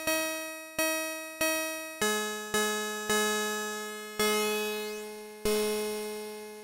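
Modbap Osiris wavetable oscillator in a Eurorack synthesizer patch, playing a sequence of about eight plucked synth notes at changing pitches. Each note starts sharply and fades away, and the later notes are spaced wider and ring longer.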